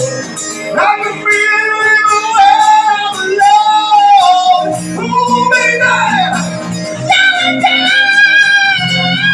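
A live band playing, with a lead singer holding long, bending notes over the bass and accompaniment.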